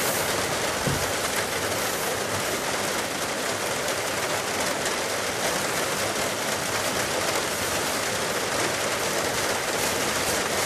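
Steady, even rushing noise of heavy rain and a debris flow running down a rocky mountain gully, with no single impacts standing out.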